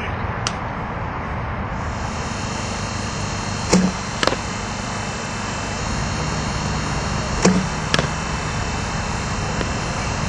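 A softball bat striking the ball twice, about four seconds apart, each hit a sharp crack followed about half a second later by a second knock, over a steady outdoor hiss.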